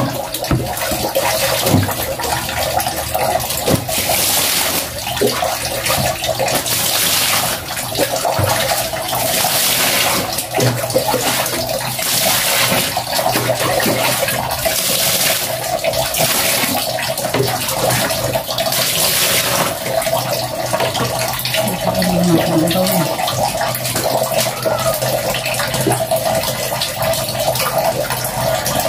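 Water pouring into a plastic washbasin, with splashing surges about every two to three seconds that stop about two-thirds of the way through, leaving a steady running-water hiss.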